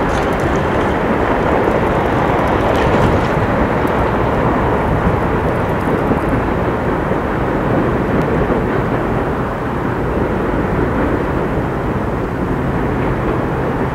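Freight train rolling slowly through a rail yard: a steady rumble of cars on the rails, with a few brief higher squeaks or clanks in the first seconds.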